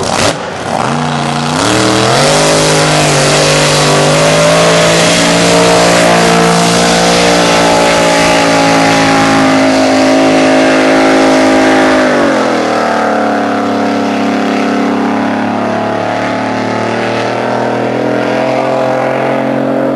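Racing powerboat engines accelerating hard from a beach start and running flat out. The pitch climbs in steps over the first two or three seconds and holds high and steady. About twelve seconds in it drops and holds lower. A short sharp sound comes right at the very start.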